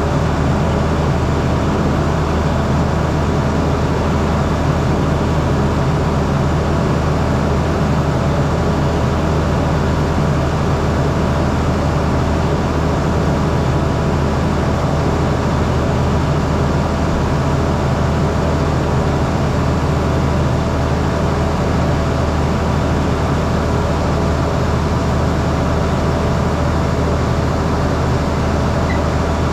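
Farm vehicle engine running steadily under way, a constant low drone heard from inside the cab.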